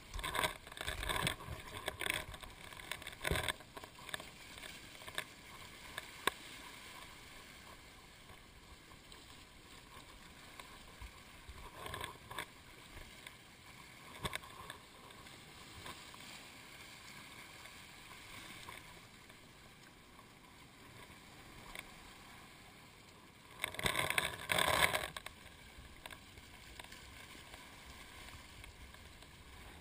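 Sea water lapping and splashing right at a camera held at the water's surface. There are irregular bursts of splashing in the first few seconds and again around the middle, and the loudest comes a little before the end.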